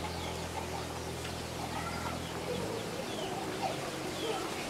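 Birds calling around a village yard: many short high chirps, with lower cooing calls mixed in. A low steady hum stops about two and a half seconds in.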